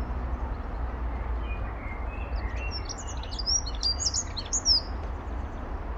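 European robin singing: a run of high, thin warbling phrases that starts about a second and a half in and stops about five seconds in, over a steady low rumble.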